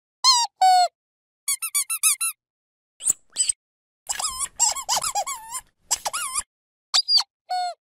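Squeaky dog toy squeezed over and over: short, high, wavering squeaks come in clusters, first two single squeaks, then quick runs of several, with brief silences between the clusters.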